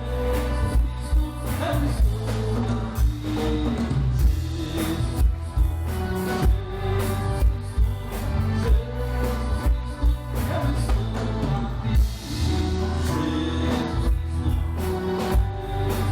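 Live band music with a steady drum beat and a man singing a Catholic worship song.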